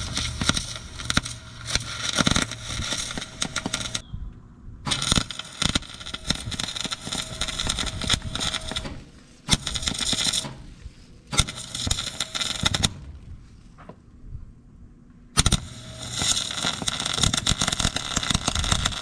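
Electric arc welding crackling in about five runs of a few seconds each, with short pauses between. The weld is re-joining a cracked seam where a discharge pipe meets a vacuum waste tank.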